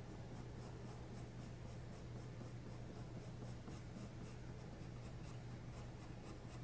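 Castle Art soft-core colored pencil shading back and forth on bristol vellum paper, faint quick scratchy strokes at about four a second.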